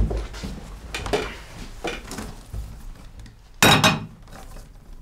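Cutlery and plates clinking and knocking on a table in a series of separate short clinks, the loudest and brightest about three and a half seconds in.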